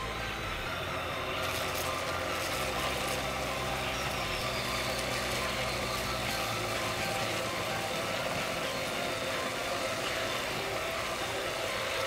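Small battery-powered DC motor of a homemade cardboard-and-bottle vacuum cleaner running steadily, its fan drawing air through the hose as it sucks up bits of polystyrene.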